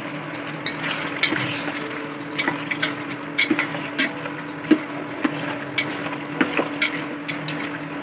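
Spatula stirring and scraping spiced chicken pieces in a stainless steel pot: irregular knocks and scrapes against the metal, over a steady low hum.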